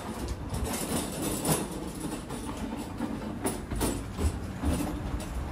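Hand cart's wheels rolling over wooden deck boards: a low rumble broken by irregular clacks.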